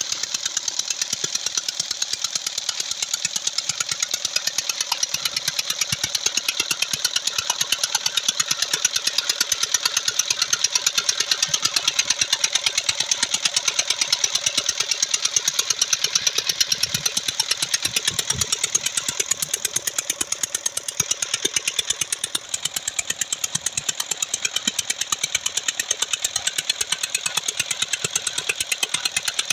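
Petter-type ('Peter') stationary diesel engine running steadily with a rapid, even beat while belt-driving an irrigation water pump. Under it is the rush of water gushing from the outlet pipe into a brick tank.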